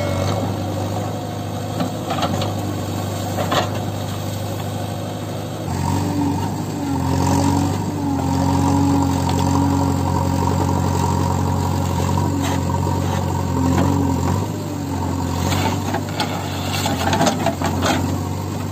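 Diesel engine of a JCB 3DX backhoe loader running as its backhoe digs out palm stumps. About six seconds in it comes under heavier hydraulic load and runs louder for roughly eight seconds, then eases back, with scattered knocks from the bucket and roots, several near the end.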